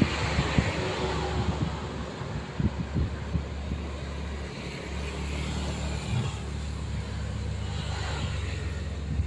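Wacker Neuson mini excavator's diesel engine running steadily while it works the soil pile, with a few short knocks in the first three seconds.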